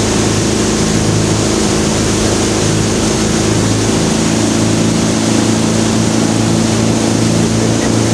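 Tow boat's engine running steadily at speed, a level drone over the rush of water and wind.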